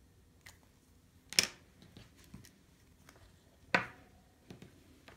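Handling of sewing materials on a work table: two sharp clicks a little over two seconds apart, with a few faint ticks and rustles between them.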